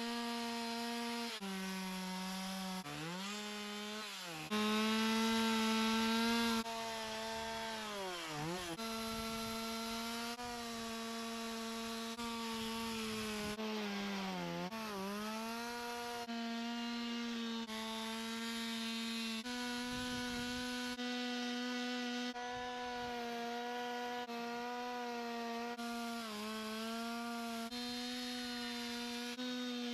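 A chainsaw runs at high revs, its pitch sagging and recovering several times as the chain bites into the wood of a carving, in a string of short clips cut together.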